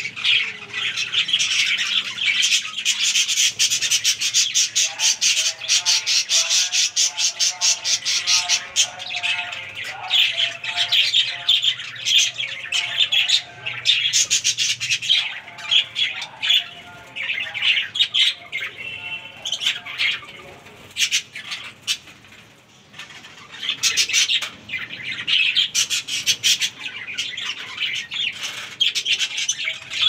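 A flock of budgerigars in an aviary chattering continuously, a dense mix of rapid chirps, warbles and squawks. The chatter thins out for a few seconds about two-thirds of the way through.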